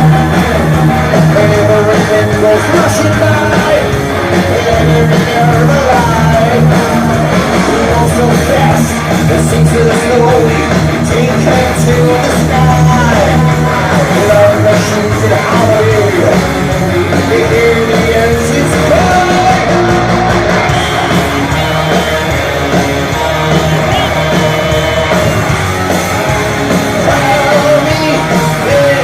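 Heavy metal band playing live and loud: distorted electric guitars over bass and drums, continuing without a break.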